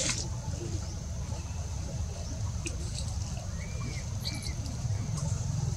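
Outdoor background with a steady high-pitched drone and a low rumble, a few faint clicks, and two short arched chirps a little past the middle.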